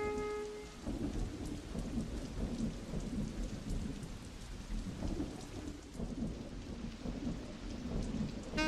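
Steady rain with a heavy, irregular low rumble underneath. A held saxophone note fades out about a second in, and the saxophone comes back in right at the end.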